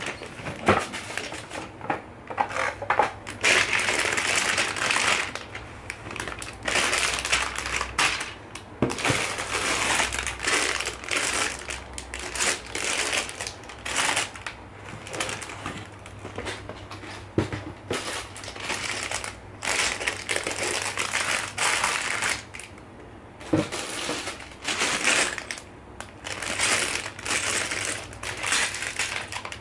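Clear plastic bags packed with small LEGO bricks being handled and set down, the plastic crinkling and the bricks rattling and clicking inside, in irregular bursts with short pauses.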